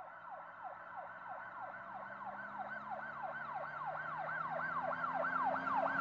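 Emergency-vehicle siren sound effect in a fast repeating yelp, about three pitch sweeps a second, growing steadily louder.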